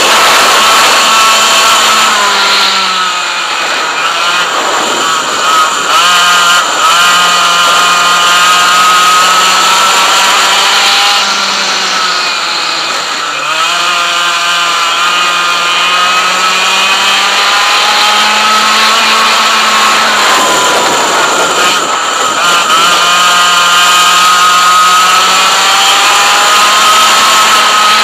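100cc two-stroke kart engine running hard at high revs, its pitch climbing steadily on the straights and dropping briefly three times as the driver lifts off for corners, then rising again.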